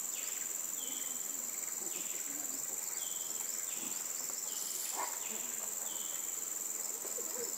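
Rainforest insects keep up a steady high-pitched drone, with a shorter call repeating about every one and a half seconds. A single faint knock comes about five seconds in.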